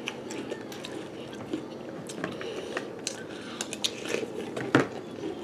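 Flake cereal being chewed and crunched close by, with spoons clicking against the bowls; one sharper click comes near the end.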